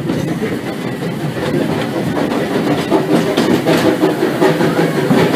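Steam train under way, heard from aboard: the Disneyland Railroad's Ward Kimball locomotive and its cars rumbling steadily over the track, with wheels clacking over the rail joints, the clacks coming thicker about three seconds in.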